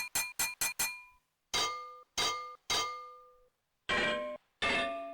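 A glass tea-light cover being clinked, replayed as a sample and pitched down step by step: a quick run of about five high clinks, then three lower hits, then two lower still, each ringing out and fading.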